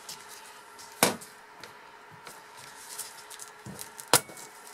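Two sharp wooden knocks about three seconds apart, with a fainter one just before the second, as a wooden lever-arm soap cutter is worked through a loaf of cold-process soap.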